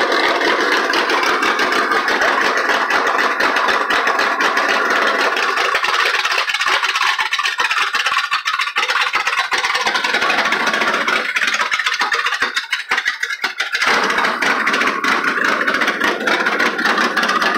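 Pickup truck engine running loudly with a rough, rattly note. It eases off twice in the middle, then comes back to full level.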